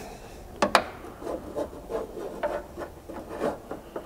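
A nut strip scraping and knocking against the inside of a Ford Bronco tailgate as it is worked through the vent opening: two sharp clicks a little over half a second in, then a run of short, irregular scrapes.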